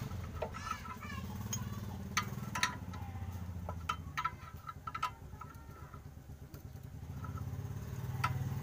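A small engine running steadily, with a low, even hum that swells again near the end. Sharp metallic clicks and taps fall on top of it at irregular moments.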